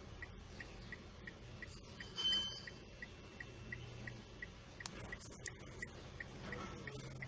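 Light, regular ticking, about three ticks a second, over a faint low hum, with one brief louder sound carrying a high tone about two seconds in.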